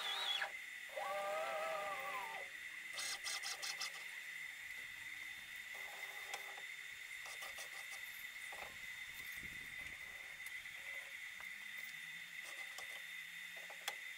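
CNC router's stepper motors whining as the gantry jogs into position. A pitched whine rises, holds for about a second and a half, then drops away, and a few clicks follow. A steady high-pitched tone runs underneath throughout.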